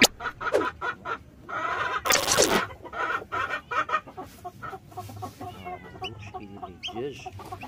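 Chickens clucking, many short calls overlapping, with one louder, harsher burst about two seconds in.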